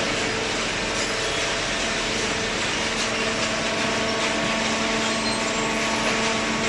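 Large hydraulic cardboard baler running: a steady machine hum with a constant whine from its electric motor and hydraulic pump.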